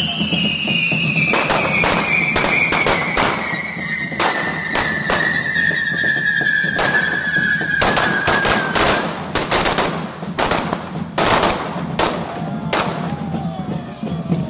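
Correfoc fireworks: a rapid string of firecracker bangs, with a long whistle from a burning firework sliding slowly down in pitch through the first nine seconds or so.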